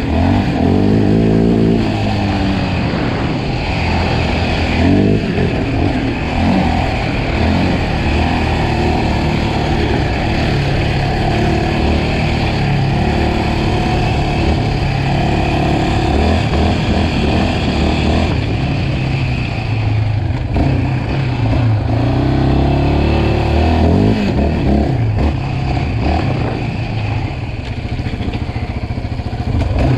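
Yamaha Raptor 700R quad's single-cylinder four-stroke engine, breathing through an aftermarket Monster exhaust, running under throttle while riding, its pitch rising and falling several times as the rider works the throttle.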